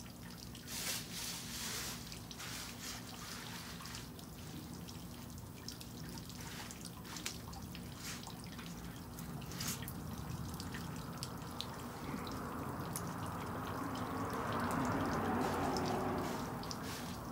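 Bay leaves being sorted by hand on a mesh drying screen: scattered light clicks and rustles as leaves are picked up and dropped. A broad rushing noise swells from about twelve seconds in and eases off near the end.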